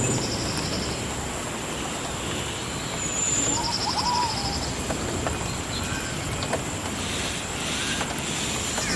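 Rainforest ambience: a steady hiss with a constant high-pitched whine, and birds calling in short trills and chirps, twice near the start and again about four seconds in.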